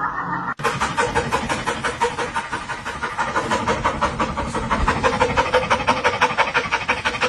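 Rapid, rhythmic panting, fast and evenly repeated, starting abruptly about half a second in after a cut.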